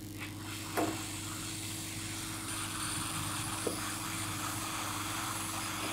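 Steady blowing hiss of a hot-air rework gun heating the solder to free a Zener diode from a circuit board, with a light click about a second in.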